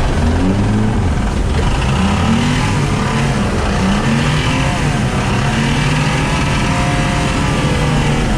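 Classic Lada Zhiguli's four-cylinder engine being revved up and down over and over while the car is driven hard.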